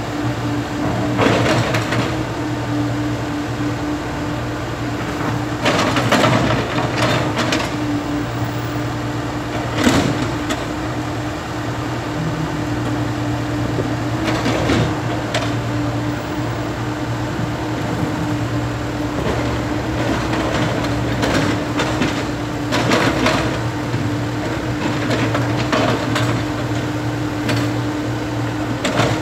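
Komatsu PC70 excavator's diesel engine running steadily, with repeated clattering knocks and scrapes as the bucket works through broken concrete slabs.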